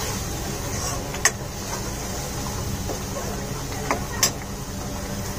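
Onion-tomato masala with ground spices frying in oil in a metal kadai, sizzling steadily while a metal spoon stirs it. The spoon clicks sharply against the pan about a second in and twice near the four-second mark.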